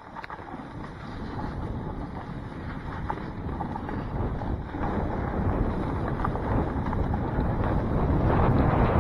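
Wind buffeting the microphone together with a snowboard sliding and scraping over snow, growing steadily louder.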